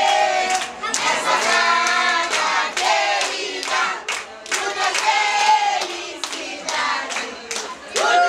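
A group of party guests singing a birthday song together, with many hands clapping in time.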